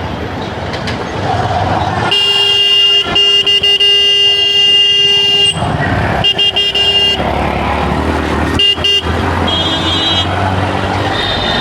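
Vehicle horns honking in a traffic jam: one long blast of about three seconds, then several shorter honks, over steady engine and road noise.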